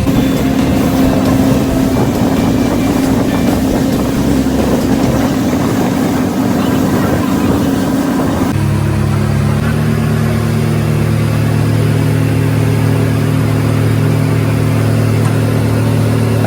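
A motor engine running steadily. About eight and a half seconds in, its note changes abruptly to a lower, even hum.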